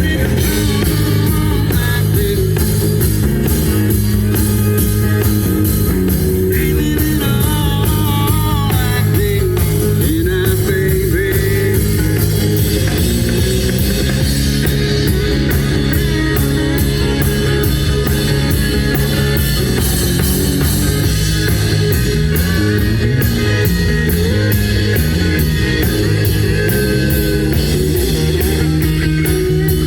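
Rock band playing: electric guitar over a drum kit, with an even run of cymbal hits through the second half.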